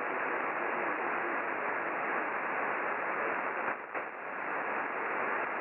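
Steady hiss and static of 80-metre band noise from an HF receiver in single-sideband mode, tuned near 3.799 MHz, on a channel where no station is transmitting. The noise briefly drops out about two-thirds of the way through.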